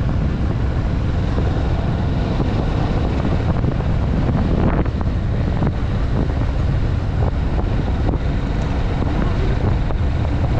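Kawasaki Vulcan S's 649 cc parallel-twin engine running steadily at cruising speed, under heavy wind noise on the camera's microphone.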